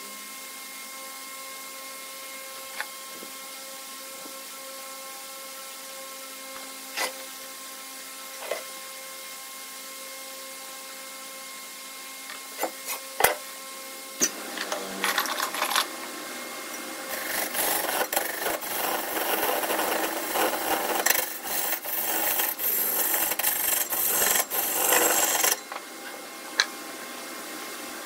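Wood lathe running with a steady hum and a few sharp clicks, then a tool starts rasping against the spinning wood about halfway through, turning loud and continuous for about eight seconds before it lifts off.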